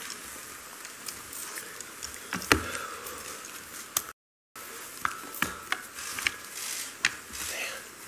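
Handling noise at a podium microphone: a folder and papers being opened and shuffled, with scattered clicks and knocks, the sharpest about two and a half seconds in. Just after the middle the sound cuts briefly to dead silence, an edit made to remove a sniffle.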